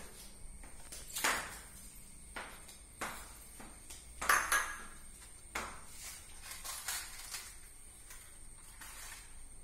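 Plates clinking and knocking as food is served onto a plate in a wicker basket: a string of separate light clinks and taps, the loudest about four seconds in.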